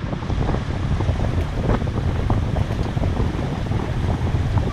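Strong wind buffeting the microphone over the rush of choppy water along a sailing yacht's hull while it is under way.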